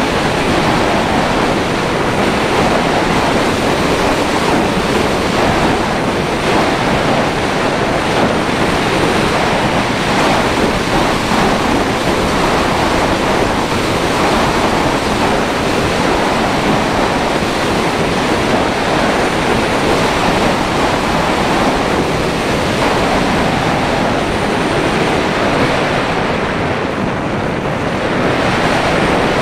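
Steady, loud rush of wind over the microphone of a HawKeye Firefly Q6 action camera riding on the nose of an unpowered slope-soaring glider in flight, dulling briefly near the end.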